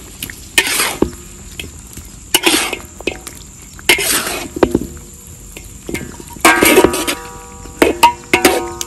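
Metal spatula stirring and scraping chicken in thick soy-sauce gravy around a large metal wok, in about five separate strokes. The last two strokes set the wok ringing.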